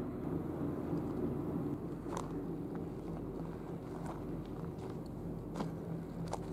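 A steady low engine drone, with four crunching footsteps on gravel.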